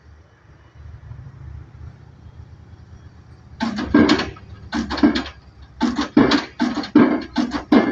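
A low, steady rumble of the pile driving rig's engine, then, about three and a half seconds in, loud music with a strong, irregular drum beat comes in.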